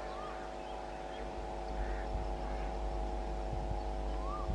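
Freight train rolling slowly past: a low rumble that swells about two seconds in, under a steady hum and a few faint knocks from the wheels. A bird chirps faintly near the start and again near the end.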